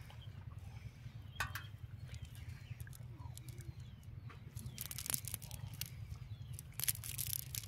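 A nylon cast net being handled: the mesh rustling and crackling, with scattered sharp clicks as its chain of sinkers knocks together, over a steady low rumble.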